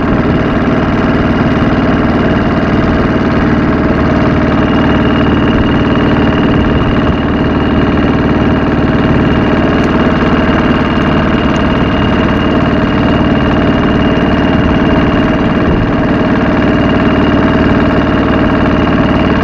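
Wooden motorboat's engine running steadily under way, a loud even drone with a thin steady whine on top, along with water washing past the hull.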